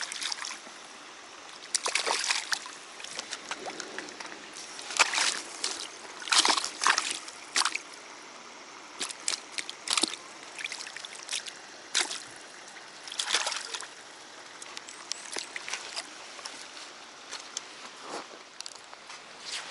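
Water splashing and sloshing in irregular bursts, with short clusters of splashes several times over a faint steady trickle.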